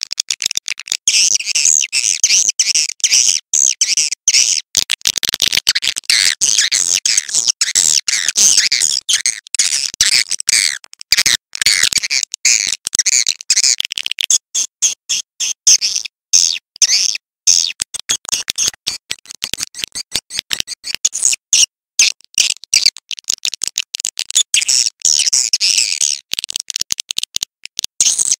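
Recorded swiftlet calls used as a swiftlet-house lure track: dense, rapid, high-pitched twittering chirps, repeatedly broken by very short gaps.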